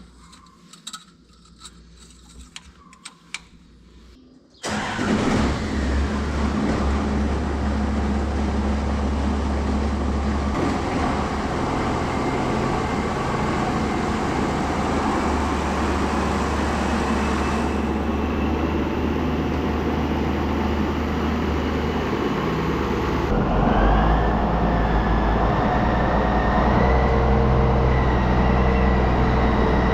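A few light clicks, then, about five seconds in, a tractor's diesel engine comes in suddenly and runs steadily. About twenty-three seconds in it gets louder, with a steady whine added.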